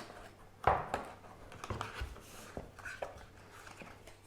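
Handling noise: a scattering of light clicks and taps as small headphone accessories, cables and adapters, are picked up and put down, the sharpest about a second in.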